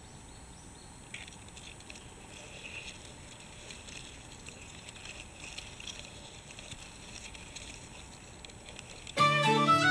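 Faint outdoor ambience: a soft, even hiss with a few light rustles and chirps. Music starts suddenly, loud, about a second before the end.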